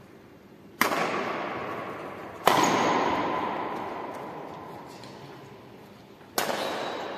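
Three loud sharp bangs, about a second in, near the middle and near the end, the middle one loudest, each ringing on for a couple of seconds in the echo of a large hall.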